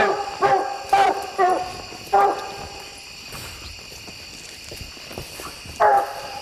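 Coonhound barking treed, the bark that tells hunters a raccoon is up the tree: short, loud bawls about every half second for the first two seconds, then a pause and one more bark near the end.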